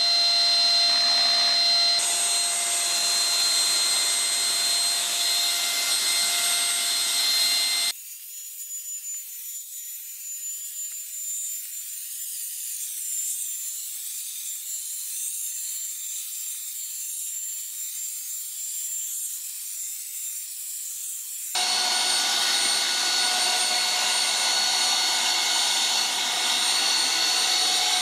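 Silvercrest SMS 300 A1 handheld anti-dust-mite vacuum cleaner running on a mattress: a steady, noisy motor drone with several high whining tones. About eight seconds in, the sound drops to a thinner, quieter hiss. The full motor sound returns a few seconds before the end.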